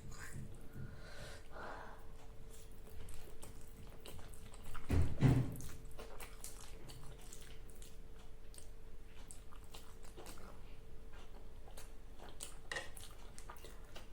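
Close-miked eating: soft chewing, biting and wet mouth clicks, with a louder low thud about five seconds in. A faint steady hum runs underneath.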